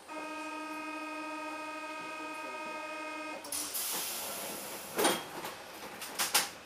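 Paris Métro train's door-closing warning signal: a steady buzz for about three and a half seconds. It is followed by a burst of air hiss and then several sharp thuds as the sliding doors shut, the loudest about five seconds in and a close pair near the end.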